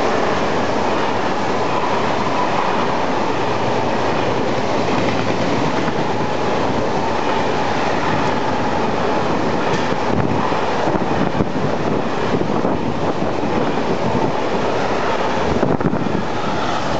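Freight train of empty flat stake wagons rolling through at speed: a loud, steady rumble of steel wheels on rail. From about ten seconds in, sharper clicks from the wheels join the rumble.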